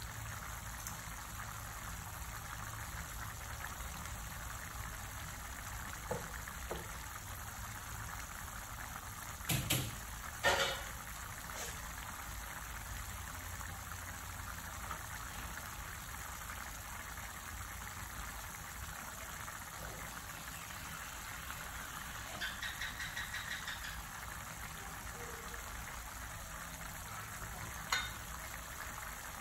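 Tomato and minced-meat sauce simmering in a pan, bubbling and popping steadily. A few sharp clicks stand out, the loudest about ten seconds in, with a short run of rapid ticks later on.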